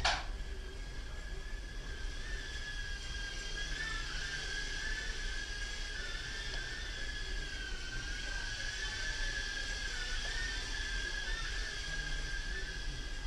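Blade Inductrix FPV mini quadcopter's four ducted propellers whining in flight. The high, steady pitch wavers up and down a little as the throttle changes. A sharp click comes right at the start.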